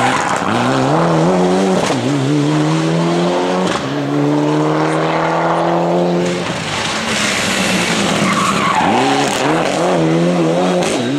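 Rally cars at full effort through a corner. A Mitsubishi Lancer Evolution slides through with tyre noise, its engine revving on and off the throttle and changing gear, then holds a long climbing note as it accelerates away. About eight seconds in a second rally car arrives, its engine revving up and down.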